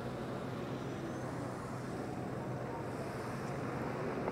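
Street traffic noise with a city bus driving slowly past, its engine giving a steady low hum under the general road noise.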